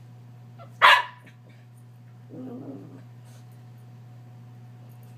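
Small dog playing: one sharp, high-pitched bark about a second in, then a short, low growl a little after two seconds. A steady low hum runs underneath.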